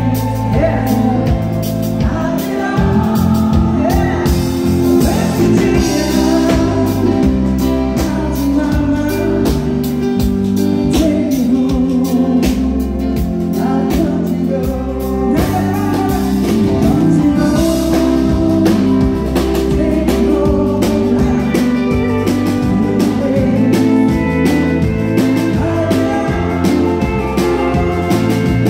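Live country music: a singer with a band of guitars, bass and drums, playing continuously at a steady level.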